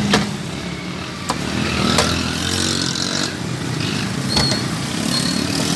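Steady street-traffic background with a few sharp clinks and knocks, about four in all, as a tin and utensils are handled against the steel tray and counter of a street food stall. One knock a little past the middle leaves a brief high ring.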